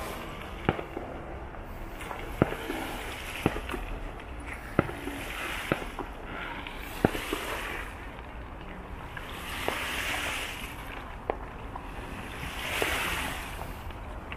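Fireworks display: about ten sharp bangs at irregular intervals, with a few longer swells of hissing in between.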